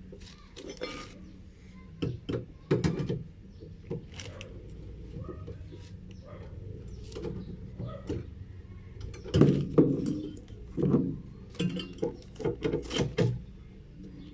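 Irregular knocks, clicks and clatter of tools and parts being handled while working on a washing machine's motor, in bunches about two seconds in and again from about nine seconds in, over a low steady hum.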